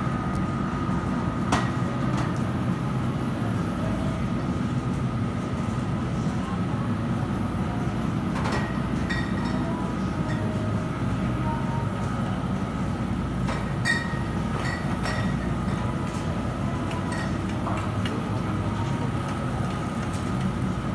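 Model train running on an overhead ceiling track: a steady rumble with a faint steady whine above it, and a few sharp clicks and clinks.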